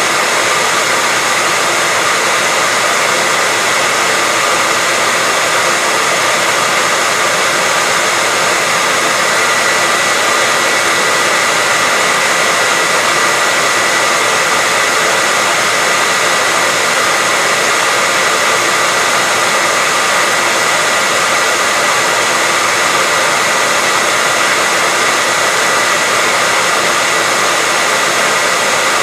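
Hairdryer running steadily: an even rushing blow of air with a steady whine from the motor and fan, unchanging throughout.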